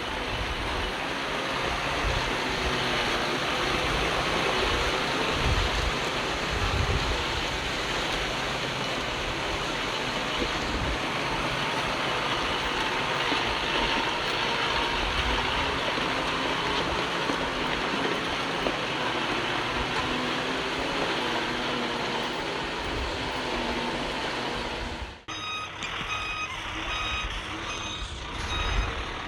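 Diesel engine of heavy earthmoving machinery running steadily amid a continuous rush of noise and low gusty rumbles. About 25 seconds in the sound cuts abruptly to a reversing alarm beeping evenly, about two beeps a second, over the engine.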